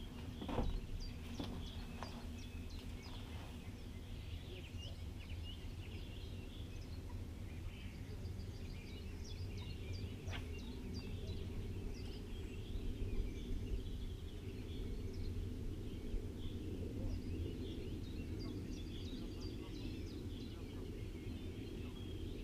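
Many birds singing, a continuous scatter of short high chirps and trills, over a steady low rumble. A few sharp knocks in the first few seconds and one about ten seconds in, from tackle being handled on the wooden jetty.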